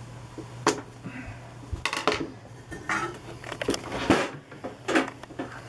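About half a dozen sharp, irregular metal clinks and knocks from a screwdriver working the hook drive gear's set screws and from handling the cast-iron Juki LU-562 walking-foot industrial sewing machine.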